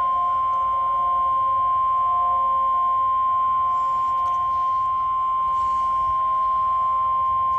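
NOAA Weather Radio 1050 Hz warning alarm tone: a single loud, steady, unbroken tone heard through a weather radio receiver. It signals that a warning message is about to be read.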